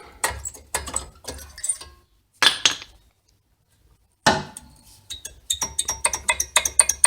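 Worn brake pads being pulled out of the front caliper bracket: metal clicking and clinking, two louder knocks partway through, then a quick run of ringing metal clinks near the end.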